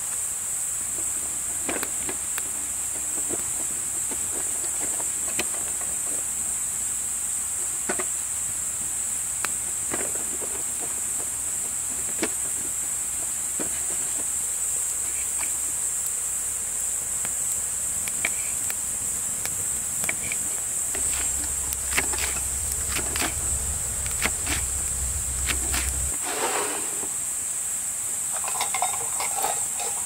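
Steady high-pitched chorus of insects, with scattered light clicks and knocks. A low hum underneath grows stronger and then stops about 26 seconds in.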